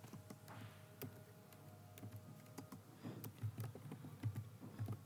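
Computer keyboard keys being typed, faint irregular clicks.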